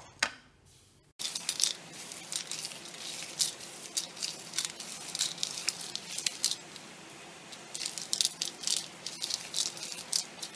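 Roasted peanuts rubbed by hand on a steel plate to loosen and strip their papery skins: a busy, uneven rattling and crackling of nuts and skins against the metal. It starts about a second in, after a short quieter stretch.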